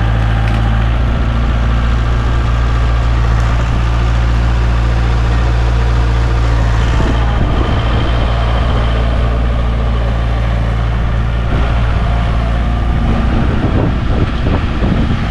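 Tractor engine running steadily at a low, even rumble, heard up close.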